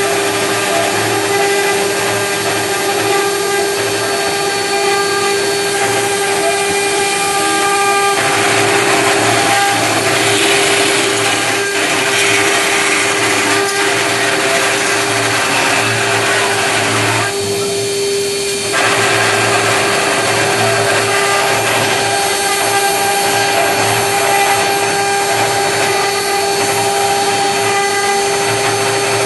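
CNC router spindle running with a steady high whine while its cutter engraves, the cutting noise loud and continuous. The sound changes character about eight seconds in and eases briefly a little past halfway.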